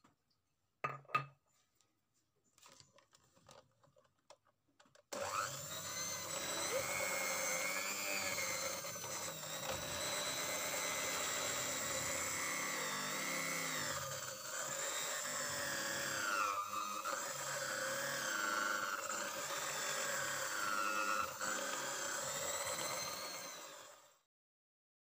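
Electric hand mixer running with its beaters in a bowl of buttercream frosting as icing sugar is beaten in; its motor whine wavers in pitch as the load changes. It starts about five seconds in, after a short click, and stops abruptly near the end.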